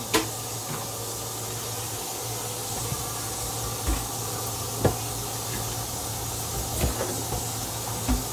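Steady hiss of food cooking on the stove over a low hum, with a few soft, low knocks.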